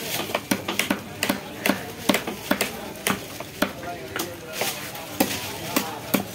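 Heavy knife chopping a fish fillet into chunks on a thick wooden block: a quick, uneven run of sharp knocks, about three to four a second.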